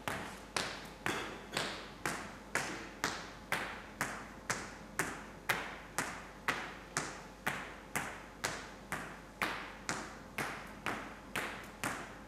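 Footsteps of hard-soled leather dress shoes on a bare stage floor, an even walking pace of about two steps a second, each heel strike clicking and ringing out briefly in the large room.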